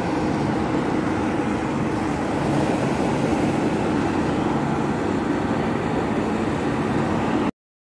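Helicopters flying past in a line, a steady drone of rotors and engines with a low hum. It cuts off suddenly near the end.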